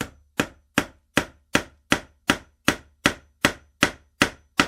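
A hammer striking steadily, about two and a half blows a second, each a sharp knock that dies away quickly.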